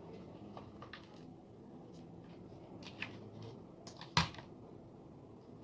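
Scattered small clicks and taps of hands and tools handling a quadcopter's plastic shell and parts while it is opened up for repair, with one sharper, louder click about four seconds in.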